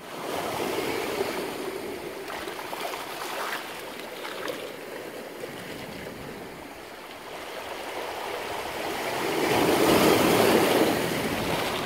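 Sea waves washing against a rock and over a pebble shore, a steady rush of surf that swells as a bigger wave breaks near the end.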